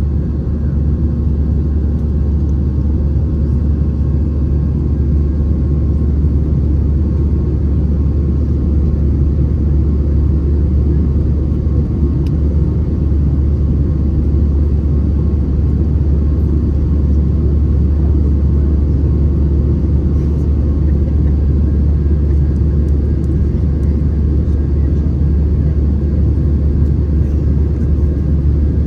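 Steady cabin noise of an Airbus A319-111 in flight: a deep, even rumble of its CFM56 engines and the airflow around the fuselage.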